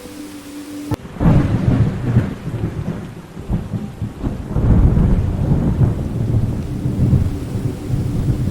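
Thunder breaks with a sudden low rumble about a second in and rolls on over rain, swelling again midway through.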